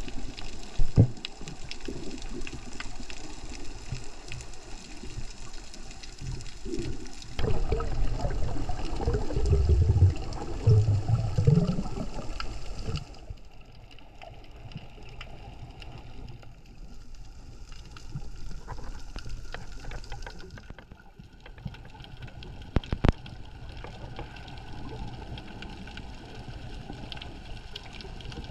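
Underwater ambience: a steady wash of moving water, with loud low gurgles from about eight to twelve seconds in, then quieter after about thirteen seconds. A few sharp clicks, the clearest about twenty-three seconds in.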